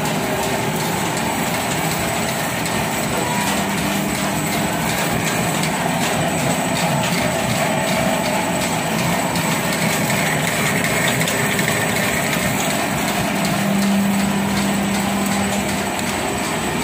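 Silver foil lamination machine running steadily, its motor and rollers turning as the laminated foil winds onto the take-up roll.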